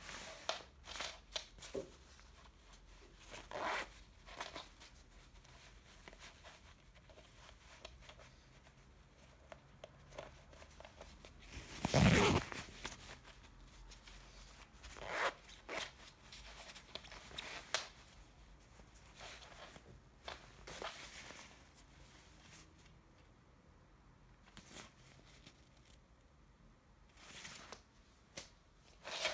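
Intermittent rustling of a Paul & Shark bomber jacket's shell and lining as it is handled, with the zip of its inner pocket worked. There is one louder rub near the middle.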